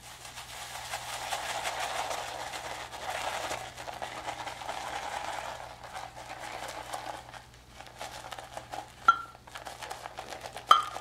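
Wet silver tip badger shaving brush swirled in a ceramic mug, working shaving soap into lather with a continuous wet swishing. Two sharp clinks near the end.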